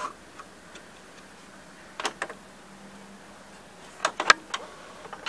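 Light clicks from the plastic parts of a White Westinghouse WVCP-8000 VHS player's cassette-loading mechanism being pressed with the fingers: a pair about two seconds in, then a quick cluster of three or four about four seconds in.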